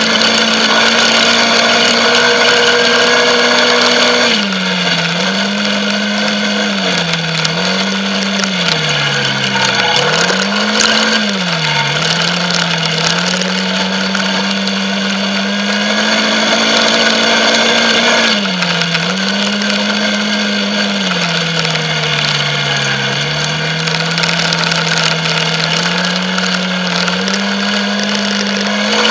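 Quad bike engine running close by under throttle, its note holding steady for stretches and dipping then rising again several times as the throttle is eased off and opened.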